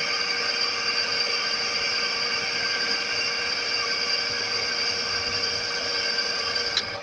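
Manual metal lathe turning an aluminum pulley, the tool taking a facing cut: a steady, high-pitched whine over the running machine, easing off just before the end.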